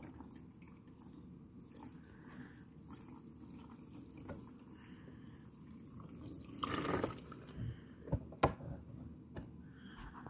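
Washing machine running with water sloshing and dripping in its drum, with a few sharp knocks between about seven and eight and a half seconds in.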